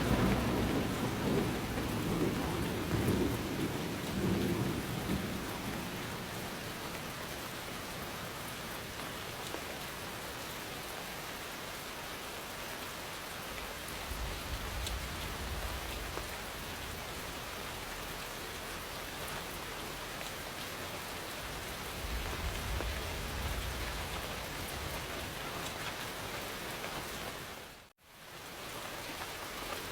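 Steady rain with thunder: a rumble fading away over the first few seconds, and fainter low rumbles later on. The sound drops out for a moment near the end.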